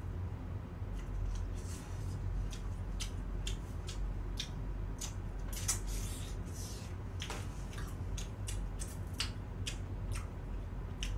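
Close crunching and chewing of fried chicken: irregular crisp crackles as the skin is bitten and chewed, spread across the whole stretch.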